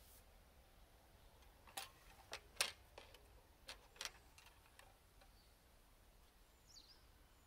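A handful of light clicks and taps as the dipstick is slid back into the filler tube of a Briggs & Stratton riding-mower engine and its plastic cap is seated, five in all between about two and four seconds in, the loudest in the middle; the engine is off and otherwise it is near silence.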